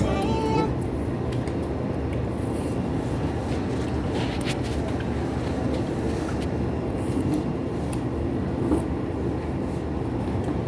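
Steady room noise in a small eatery: a continuous low hum with a few light clicks and clinks scattered through.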